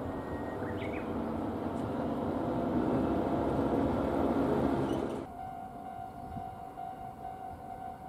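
Chichibu Railway electric train approaching on the rails, its running noise growing louder, with a brief rising squeal about a second in. The noise cuts off suddenly about five seconds in, and a railway level-crossing warning signal then sounds as a steady, slightly pulsing tone.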